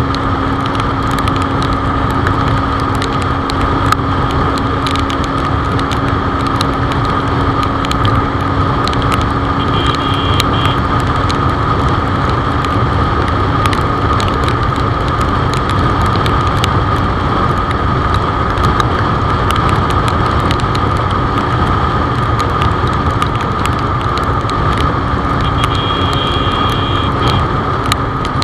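Benelli TNT25's single-cylinder engine held at a steady highway cruise of about 130 km/h, under heavy wind rush on the microphone and tyre noise on a wet road; its pitch stays constant throughout.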